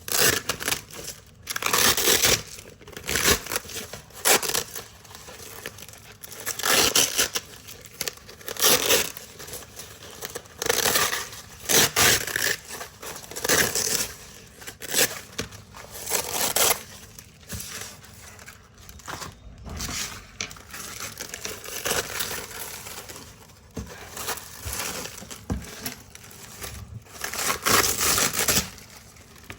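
Hook-and-loop (Velcro) strips being ripped apart again and again, each pull a short crackly rasp about a second or two apart, with softer, quicker rustling for a while after the middle.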